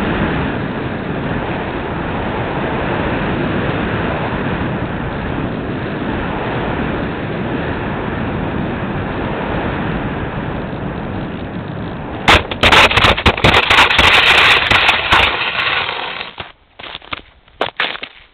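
Steady rushing noise on the onboard camera of a Bixler 2 foam RC plane flying low over snow. About twelve seconds in comes a loud, dense crackling scrape lasting some three seconds as the plane touches down and slides across crusted snow. It is followed by scattered crunching footsteps in snow coming up close.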